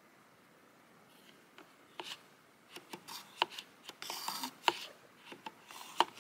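Wooden spatula stirring melted wax in a wax warmer's metal pot: irregular sharp clicks as the stick knocks the pot's side, with short scraping and sticky rubbing noises, starting about a second in.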